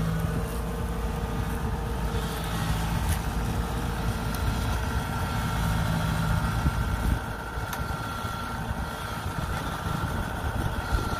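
Kubota DC-70 combine harvester's diesel engine running steadily as the machine maneuvers on its tracks, with a faint steady whine over the engine note.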